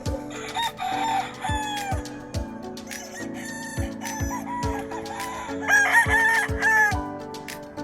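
Gamefowl roosters crowing: one crow near the start and a louder one about six seconds in, over background music with a steady beat.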